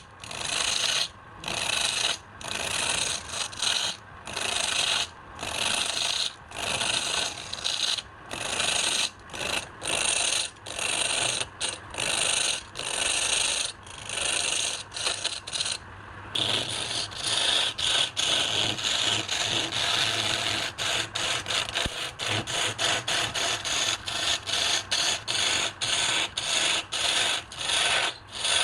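A hand tool scraping across wood in repeated back-and-forth strokes, about one stroke a second, then quicker, shorter strokes from about halfway.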